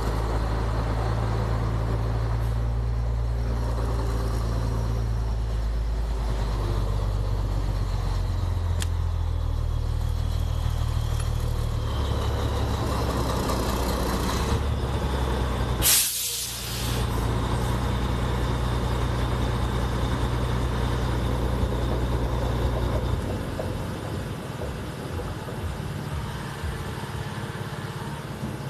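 Steady low motor hum while fuel is pumped into a motorcycle tank, with a brief loud rush about sixteen seconds in. Near the end the hum turns uneven and a little quieter.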